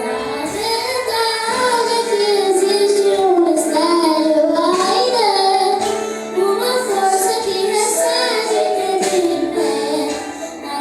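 A high solo voice singing a gospel worship song in long, gliding, ornamented phrases over sustained instrumental chords.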